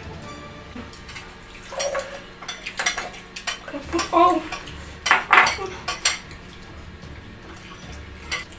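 Tableware clattering: sharp knocks and clinks of plates, glasses and glass bottles on the table while people eat by hand and handle their drinks, in a busy cluster from about two to six seconds in.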